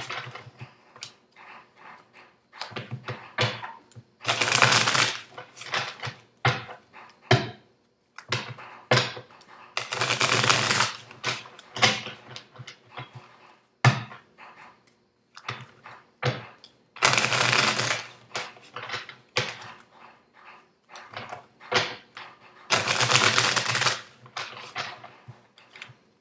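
A deck of tarot cards being shuffled by hand: a quick run of card clicks and flicks, broken four times by a longer shuffling burst of about a second, roughly six seconds apart.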